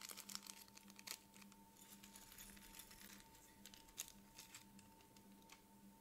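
Faint crinkling and rustling of a small clear plastic zip-lock bag as it is handled and opened, in short scattered crackles, over a steady faint hum.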